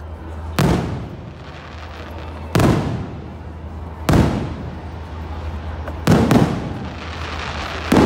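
Aerial fireworks shells bursting overhead: about five loud booms roughly every one and a half to two seconds, two of them close together about six seconds in, each trailing off in a rumbling echo.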